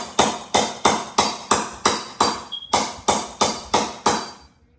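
A hammer striking repeatedly at a steady pace of about three sharp, ringing blows a second, with one short pause midway; the blows stop shortly before the end.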